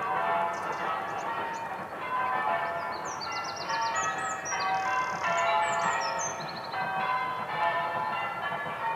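Church bells change ringing: a steady run of bell strokes, one after another, all through.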